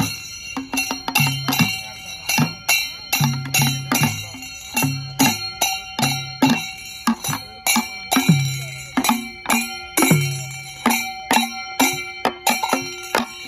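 Rhythmic percussion music: a run of sharp metallic strikes that ring on in steady tones, over a low drum note that repeats about every 0.8 seconds.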